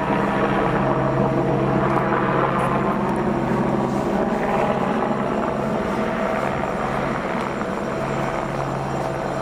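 Helicopter overhead: a steady droning hum of its engine and rotor that swells and eases a little.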